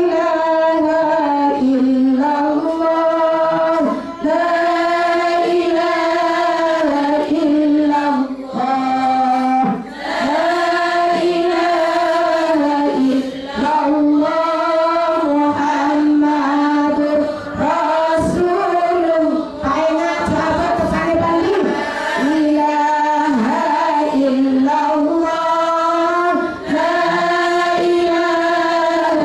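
A woman singing an Islamic devotional chant into a microphone, in long held notes that bend in pitch, pausing briefly for breath every few seconds, with other women's voices joining in.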